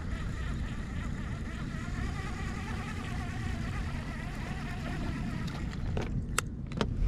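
An engine running steadily, a low rumble under a wavering hum. A few sharp clicks come near the end.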